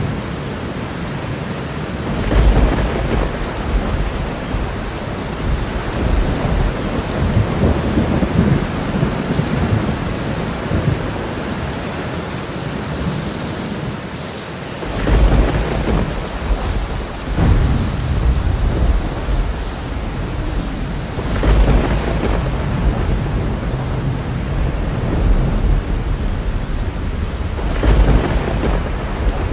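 Thunderstorm: steady heavy rain with rolling thunder rumbling in several times, strongest about two and a half seconds in, again around fifteen and seventeen seconds, and near the end.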